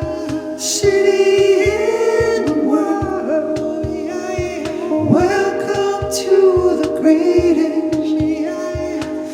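Music: layered singing with no clear words, the voices gliding between held notes over a steady low beat of about four pulses a second. The recording is raw and unmastered.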